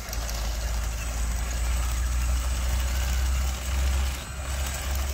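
Steady low engine rumble from the radio-controlled Komatsu bulldozer and tractor as they work the dirt, easing briefly a little past four seconds.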